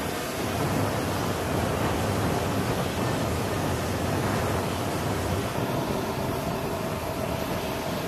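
Steady, even roar of a flatbed flight-line utility truck's engine running, blended with the constant noise of the airfield apron.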